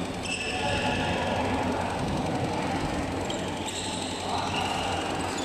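Steady din of a busy indoor badminton hall during play, with several drawn-out high squeaks over a low hum.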